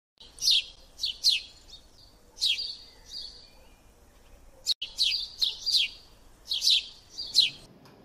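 Bird-like chirping: about ten quick, high chirps, each sweeping down in pitch, coming in irregular twos and threes, with a single sharp click just before the middle.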